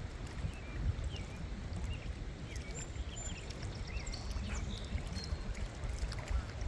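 Steady rush of water at the dam, a low rumbling hiss, with faint short high chirps scattered through it.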